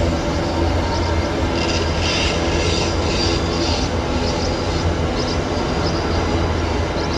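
Long train of iron ore wagons rolling slowly through a curve: a steady low rumble of wheels on rail, with high-pitched wheel squeal that comes and goes, strongest from about one and a half to three and a half seconds in.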